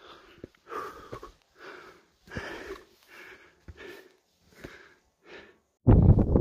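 A person's heavy, quick breathing from the effort of a steep climb, about eight breaths in five and a half seconds. Near the end it cuts off and loud wind buffets the microphone.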